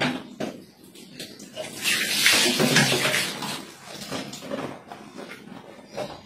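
Water splashing and pouring during a bucket-style wash for about a second and a half, starting about two seconds in, after a sharp knock at the start; softer splashes and rubbing follow.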